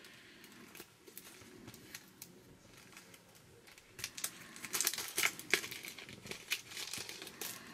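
Plastic packaging crinkling and clicking as it is handled. It is faint at first, then turns into a flurry of sharp crackles from about four seconds in.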